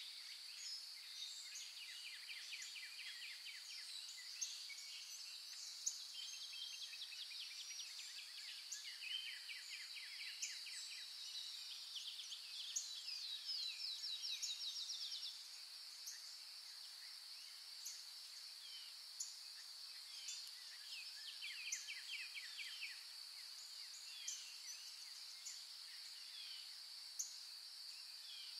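Countryside ambience: a steady high-pitched insect drone with many small birds chirping and giving rapid trills over it, busiest about halfway through.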